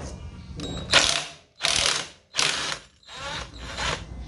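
Cordless 18-volt impact wrench hammering in three short bursts of about half a second each, undoing a nut on a motorcycle's clutch assembly.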